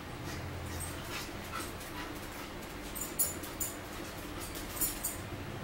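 A pet dog whining softly, begging for food it has been refused, over a steady low hum, with a few short, sharp clicks in the second half.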